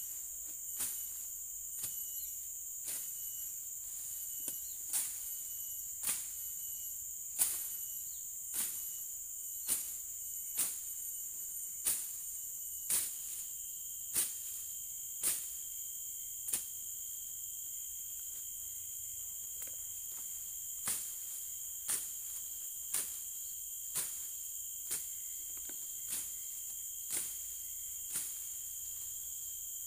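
Machete chopping through weeds and undergrowth, sharp strokes about once a second with a pause of a few seconds past the middle. A steady high-pitched insect drone runs underneath.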